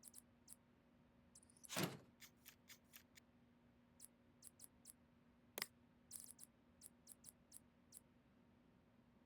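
Faint, scattered small clicks and light taps of hardware being handled, with a louder knock about two seconds in and another a little past the middle.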